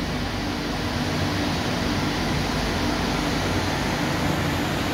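Steady hum and noise of workshop machinery, a constant low drone with a few faint unchanging tones.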